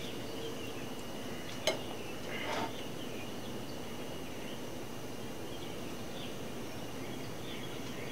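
Quiet outdoor evening background: a steady hiss with a faint, thin high insect drone and a few faint chirps. A single sharp click about two seconds in, with a brief soft rustle just after.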